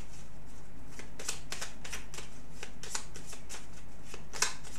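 A deck of fortune-telling cards being shuffled by hand: a quick, irregular run of card flicks and riffles, with a sharper slap near the end.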